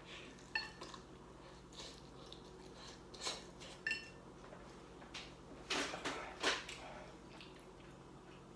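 Chopsticks clicking and scraping against white bowls of noodles, a couple of the clinks ringing briefly, with a few short louder eating noises in the middle.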